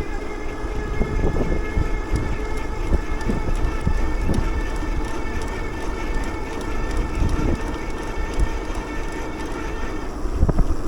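Riding noise from a bicycle going at speed: wind buffeting the microphone over a low road rumble, with a steady high whine that fades out near the end.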